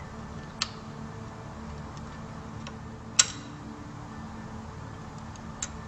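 A few light, sharp metallic clicks as a small sheet-metal cover is handled and fitted against the reciprocator and bearing of an embroidery machine head. The loudest click comes a little past halfway, over a faint steady hum.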